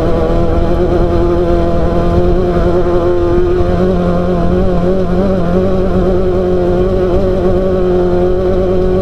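Class 12 off-road race car's engine running at a steady, held speed over a heavy low rumble, its pitch nearly constant with a slight change about three and a half seconds in.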